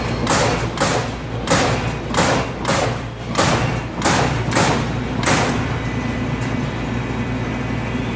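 Amada Aries 245 CNC turret punch press punching sheet metal: about nine sharp punch strokes, one every half second or so, over a steady machine hum. The strokes stop about five seconds in, leaving only the hum, as the sheet is repositioned.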